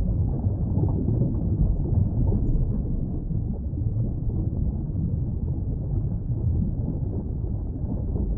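A steady low rumbling noise, even and unbroken, with no calls from the pelican.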